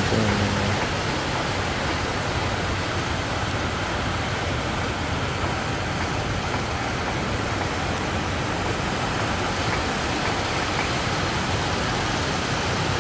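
Steady, even roar of large waves breaking.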